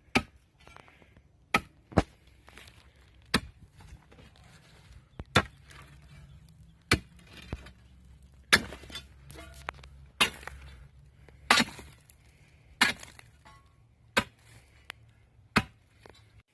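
A digging tool striking and breaking up a layer of asphalt: about a dozen sharp strikes, roughly one every second and a half.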